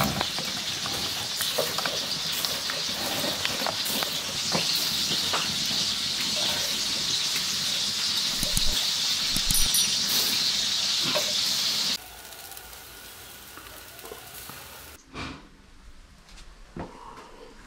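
Open wood fire hissing and crackling, with many sharp pops. About twelve seconds in the sound drops suddenly much quieter, leaving faint crackle and a few soft knocks.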